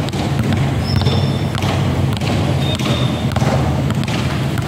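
Two basketballs being dribbled at the same time on a concrete court, a steady run of short bounces. Under the bounces runs a steady low hum.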